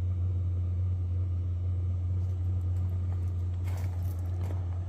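An 8 kW diesel air heater burning a used-oil mixture, winding down in its shutdown cycle with the fuel pump off and its fans turned down, giving a steady low hum. A few faint ticks come about two and four seconds in.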